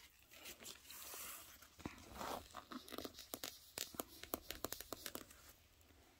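A cotton pad rubbed and wiped over a small black testing stone lying on paper. It makes a string of quick scratchy rubbing strokes and small clicks, busiest in the middle few seconds.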